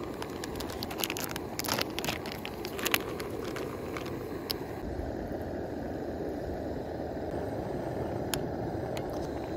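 Steady rushing of a camp stove burner heating a stainless pot of boiling soup. In the first three seconds there are sharp metal clinks and plastic rustling as the lid comes off and noodles are poured in from a pouch, and a few light clicks of chopsticks against the pot follow later.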